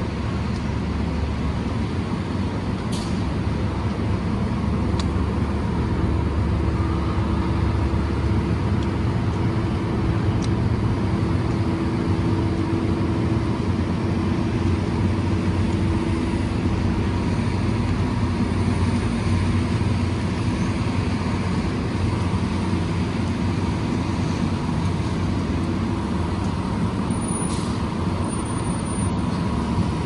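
Steady city street traffic rumble from passing vehicles. An engine hum stands out in the middle stretch.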